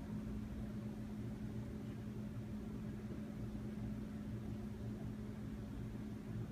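Steady low hum with a faint rushing noise underneath, unchanging throughout.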